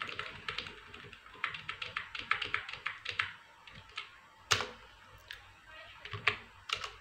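Laptop keyboard keys being pressed: a quick run of typing clicks, then a few single key presses, the loudest about halfway through.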